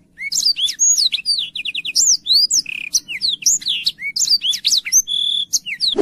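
Black-throated canary (black throat) singing: a fast, varied song of short rising and falling whistles and chirps, with a quick trill about two seconds in and a briefly held whistle near the end.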